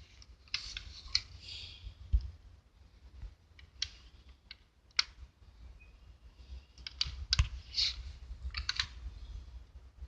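Irregular small clicks and taps with short scratchy rustles, the sounds of close-up handwork with brush and paint. The clicks come in loose clusters, the loudest ones a little over two seconds in and again at about seven to eight seconds in.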